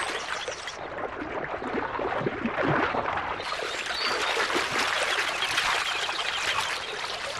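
River water running over shallows: a continuous rush with small gurgles. Its hissing top end drops away about a second in and returns after about three and a half seconds.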